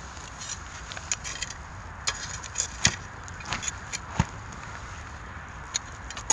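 Irregular sharp clicks and knocks of metal tongs poking and shifting burning pine cones in a shichirin clay charcoal grill, over a steady hiss. The two loudest knocks come near the middle.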